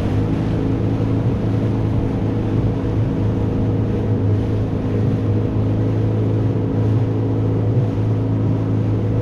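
Small fishing boat's engine running at a steady speed while under way, a steady low hum over a hiss of wind and water.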